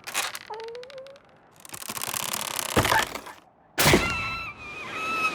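Cartoon slapstick sound effects: a short hit, a brief wavering tone, a swelling noise that ends in a hit about three seconds in, then after a short gap a sharp crash followed by a wavering high-pitched squeal.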